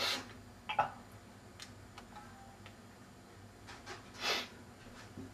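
A few short, sharp sniffs through the nose: one at the start and another about four seconds in. A sharp knock comes just under a second in.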